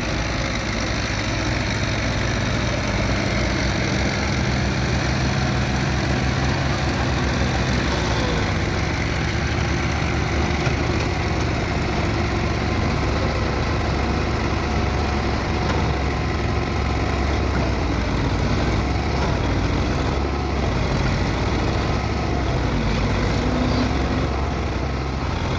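Belarus tractor's diesel engine running steadily under heavy load as it pulls a trolley overloaded with sugarcane.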